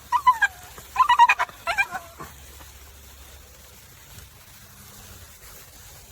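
Dog whining and yipping in a quick run of short, high calls over the first two seconds, some sliding down in pitch.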